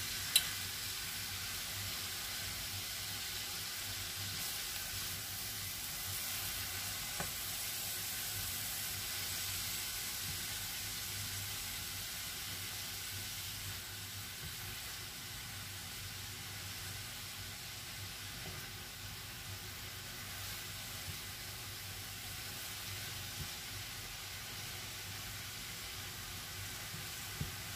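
Cauliflower-rice stir-fry with beef, chorizo and bean sprouts sizzling steadily in a hot frying pan as it is stirred with a silicone spatula, the sizzle easing a little about halfway through. A sharp tap sounds just after the start.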